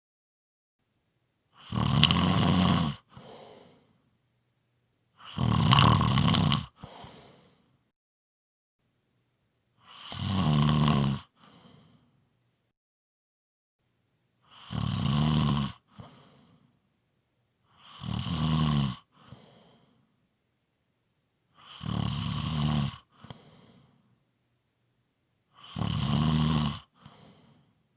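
Strong snoring: seven loud snores at a steady pace of about one every four seconds. Each lasts a second or so and is followed by a short, quieter breath, with silence between.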